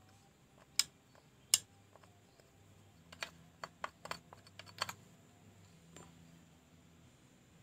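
Sharp clicks and light knocks from hard parts or tools being handled during a chainsaw repair: two single clicks about a second in, then a quick cluster of a dozen or so in the middle.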